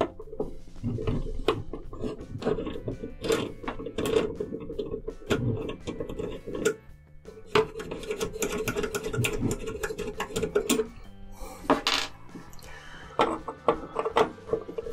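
Screwdriver working long machined screws out of a metal computer case: rapid metallic clicking and scraping that pauses briefly about seven seconds in. A louder clack comes about twelve seconds in.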